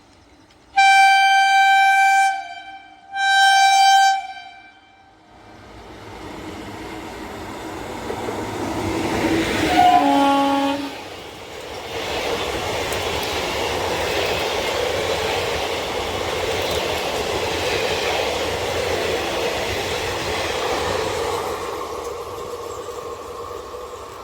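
A WAP-4 electric locomotive's horn sounds two long blasts. Then the passenger train approaches and passes with a rising, steady rumble of wheels on rails. A short falling tone comes as the locomotive goes by, and the rumble fades near the end.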